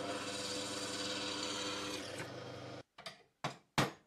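Drill press motor running steadily while drilling out the spot welds on a steel drawer-slide bracket, stopping a little under three seconds in. Then a few short, quick cutting strokes on the steel drawer slide held in a vise.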